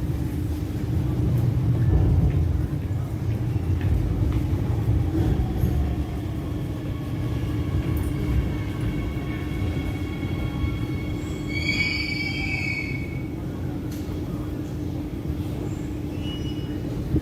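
Shanghai Metro type 09A02 electric train running, with a steady low rumble and a faint whine from the traction motors that shifts in pitch. About twelve seconds in comes a brief high-pitched squeal, typical of the wheels on the rails.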